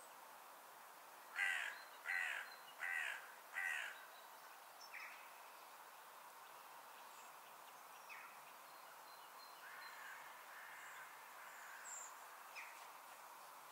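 A crow cawing four times in quick succession, evenly spaced, followed by a few fainter single calls over a steady faint background hiss of open countryside.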